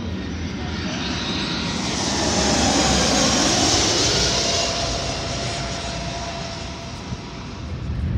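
Delta Airbus A319 jetliner on final approach passing low overhead: its jet engine noise swells to a peak about three seconds in, with a whine that falls in pitch as it goes by, then fades.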